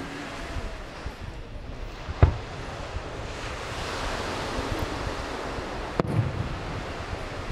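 Two sharp fireworks bangs about four seconds apart, the first much louder, over a steady hiss of surf and wind on the microphone.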